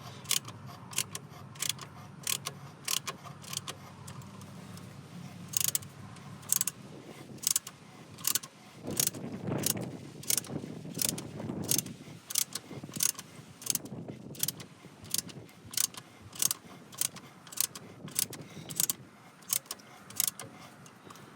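Ratcheting tap handle clicking over and over, about twice a second, as a tap cuts threads into the engine's muffler bolt holes. There is some scraping handling noise in the middle.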